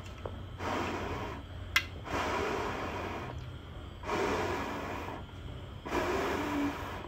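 Four long breaths blown onto smouldering charcoal in a small burner to coax it to catch, each a rush of air lasting about a second. A single sharp click comes just under two seconds in.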